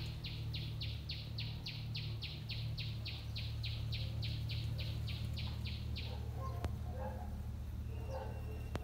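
A rapid, even series of short chirps, about four a second, that stops about six seconds in, followed by scattered fainter chirps and a sharp click, over a steady low hum.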